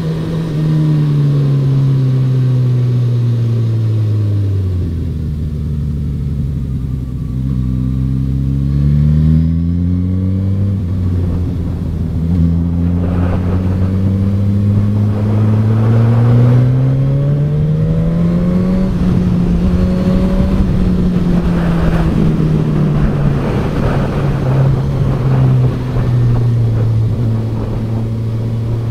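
Suzuki GSX-S1000F's 999 cc inline-four engine heard from the rider's seat: the revs fall over the first few seconds and stay low, then climb steadily for about ten seconds before easing off toward the end. Wind rushes over the microphone while the bike is at speed.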